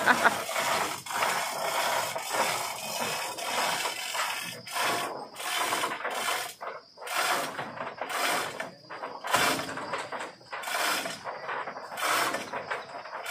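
Ratchet clicking in repeated strokes, sharper and more spaced from about four seconds in, as a lever-type chain tensioner is worked to pull the leaning truck cargo body back straight.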